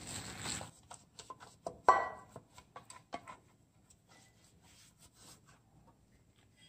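Wet squishing of a plastic-gloved hand mixing a sticky pumpkin batter in a glass bowl, stopping under a second in. About two seconds in comes one loud knock of kitchenware with a short ring, followed by faint clicks and plastic-glove rustles.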